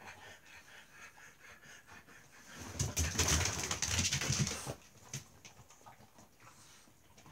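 A bulldog's noisy, rasping breath, a rapid fluttering rasp lasting about two seconds, starting nearly three seconds in.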